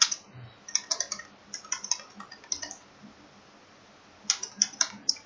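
Typing on a computer keyboard: quick runs of key clicks, with a pause of about a second before a last burst of keystrokes near the end.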